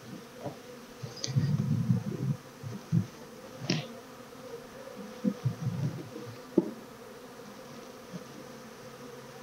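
Honeybees buzzing around an open hive: a steady hum, with louder swells as bees fly close past. Two sharp clicks come about a third and two-thirds of the way through.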